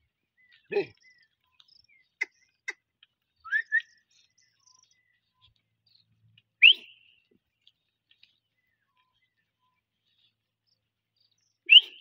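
A few short, sharp rising whistles: a pair of weaker ones about three and a half seconds in, a loud one about seven seconds in and another near the end, with a couple of faint clicks between.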